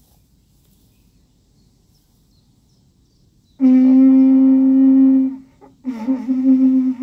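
Conch shell blown as a horn. After a few quiet seconds, one long steady low note starts about halfway in, breaks off briefly, and comes back with a wavering start.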